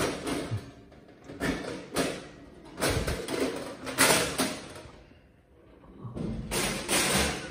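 Enamel top plate of a Paloma gas cooktop being lifted off and handled: a run of sheet-metal scrapes, rattles and thuds, loudest about three and four seconds in, with a short lull before more clatter near the end.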